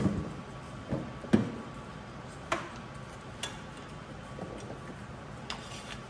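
Scattered short knocks and clicks at uneven intervals: several in the first second and a half, the sharpest about a second and a half in, then single lighter clicks every second or two.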